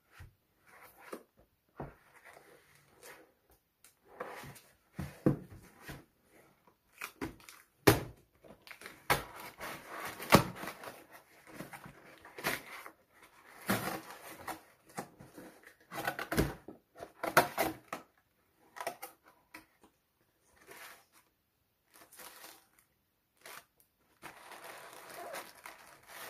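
Cardboard shipping box being torn open by hand: irregular ripping and scraping of cardboard with sharp knocks and snaps. Near the end, a steadier rustle as the hands work through plastic air-cushion packing.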